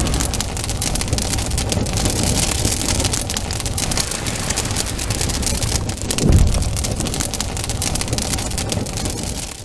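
Intro sound effect: a loud, dense crackling hiss that runs on without a break, with a low whooshing boom swelling up about six seconds in.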